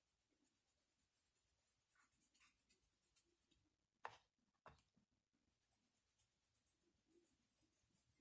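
Faint, rapid scraping strokes on a hard surface, broken about four seconds in by two light knocks half a second apart, then scraping again.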